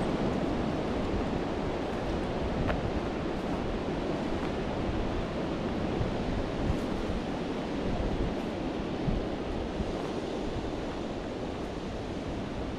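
Steady wind rushing through the trees, with gusts buffeting the microphone in low rumbles.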